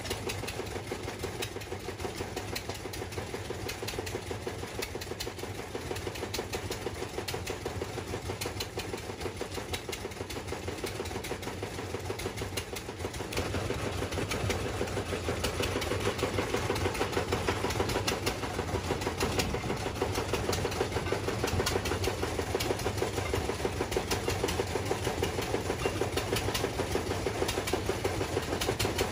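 An engine-driven machine running steadily with a fast, even pulse. It gets louder about 13 seconds in.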